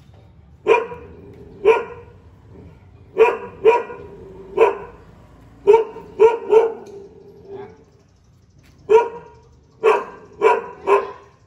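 A dog barking: about a dozen short, sharp barks, some in quick pairs, with a pause of about a second past the middle.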